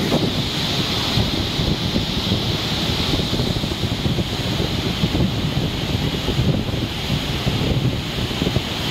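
Floodwater pouring through the open spillway gates of a dam into the river below: a loud, steady rush of water, with wind on the microphone.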